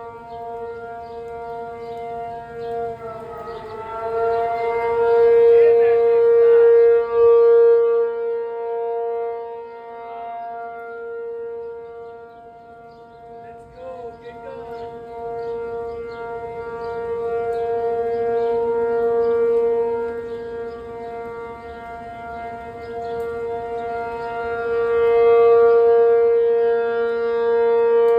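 P-50 outdoor warning siren sounding its steady alert tone, one held pitch that swells and fades in loudness as the siren rotates. This is the steady alert signal, sounded that day for a tornado warning.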